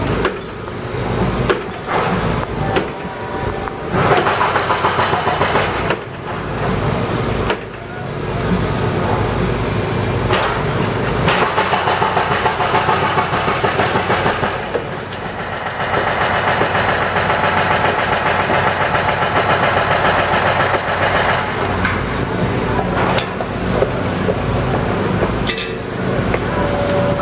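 Street track-construction site noise: heavy machinery engines running steadily, with a few sharp knocks and some voices in the background.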